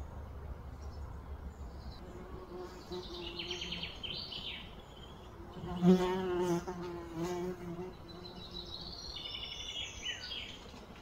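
A fly buzzing, its hum wavering in pitch and loudest about six seconds in. Birds chirp in the background, once early and again near the end.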